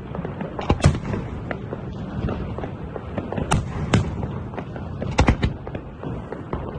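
Fireworks display: aerial shells bursting in sharp bangs a second or two apart, with a quick cluster of bangs about five seconds in, over a continuous crackle and rumble of other effects.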